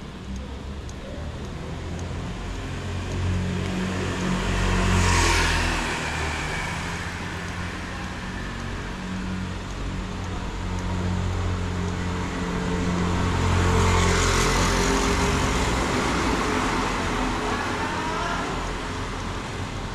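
Street traffic: motor vehicles running past, two of them passing close, about five seconds in and again around fourteen seconds, over a steady engine hum.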